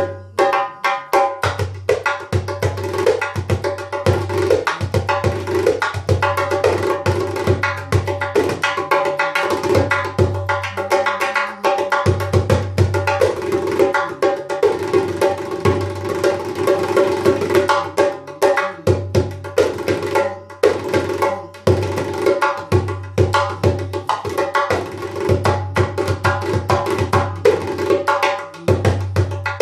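Frame drum played with the fingers: a fast, unbroken run of strokes over a ringing drum tone, with a deep bass boom that comes and goes every second or two.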